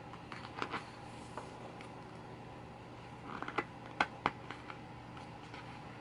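Glossy photobook pages being handled and turned: crisp paper rustles and crackles, with a cluster of sharp page snaps about three and a half to four seconds in, over a steady low hum.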